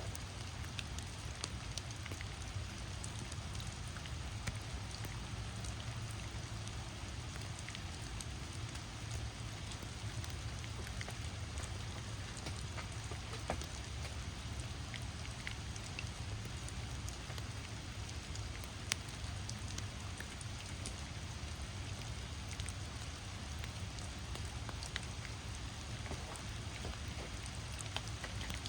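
Heavy rain falling steadily: a continuous hiss of rain with scattered sharp drops landing close by.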